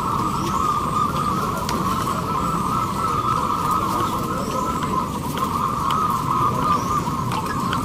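Many caged zebra doves cooing at once, their overlapping coos merging into a steady, dense warbling chorus, over a low murmur of a crowd.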